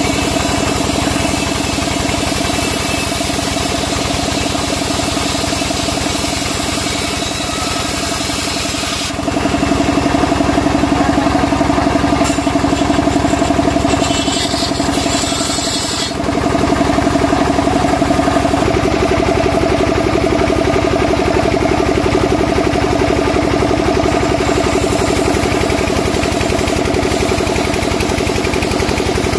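Sawmill band saw running steadily while ripping a timber beam lengthwise into planks, a constant mechanical drone with the cutting noise louder from about nine seconds in and again from about sixteen seconds in.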